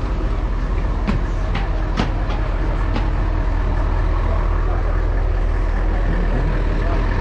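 Steady low rumble of a vehicle in motion, heard from inside, with a few sharp knocks or rattles in the first three seconds.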